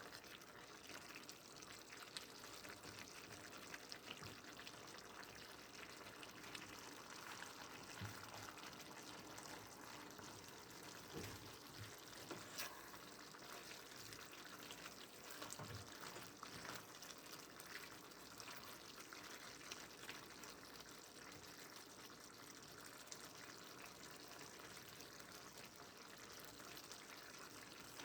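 Faint, steady sizzle of vegetables cooking in a pan, with occasional small crackles.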